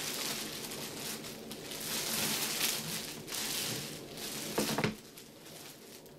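Clear plastic bag crinkling and rustling as a helmet is pulled out of it, with a louder crackle just before it stops about five seconds in.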